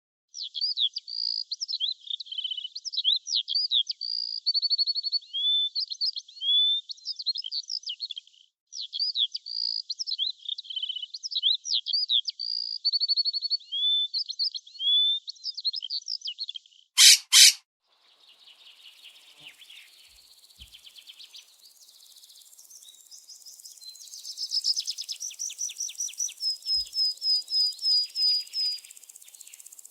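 Bird song: quick, varied whistled phrases and trills, with a short break about eight seconds in. Two loud sharp knocks come just after the middle, followed by fainter high calls over a hiss and a run of rapid repeated notes near the end.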